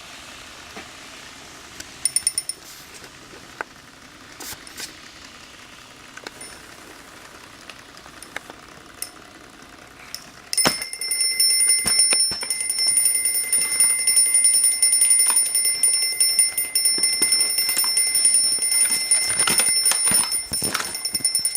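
Alarm clock ringing. It gives a couple of brief rings in the first few seconds, then about halfway through it starts ringing continuously and loudly, and keeps on.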